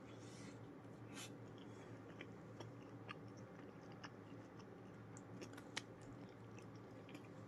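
Faint close-up eating sounds: chewing and biting, with scattered small crunches and mouth clicks.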